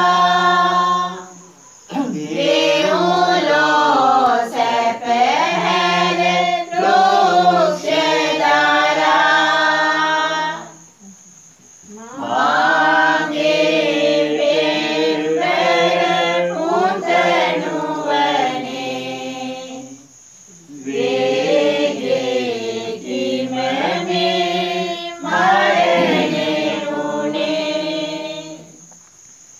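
A group of voices sings a Sinhala Catholic pasan, a Lenten Passion hymn, unaccompanied. The long, ornamented phrases break for a short pause about every nine seconds.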